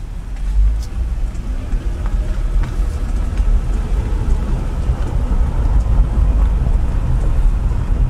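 Car driving slowly, a steady low rumble of engine and tyres heard from inside the cabin.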